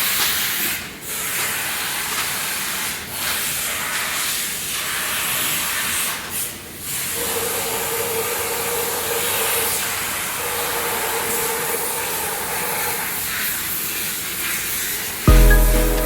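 Steady hiss of compressed air at a die-casting machine, dipping briefly a few times. Music comes in near the end.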